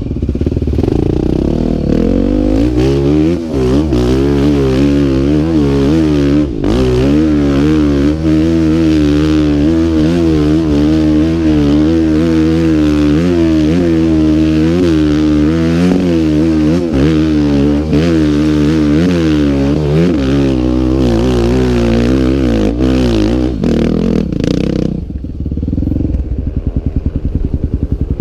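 Single-cylinder trail motorcycle engine working hard on a steep climb, its revs rising and falling again and again as the rider works the throttle, with clattering from the bike. Near the end the engine note drops to a lower, evenly pulsing beat.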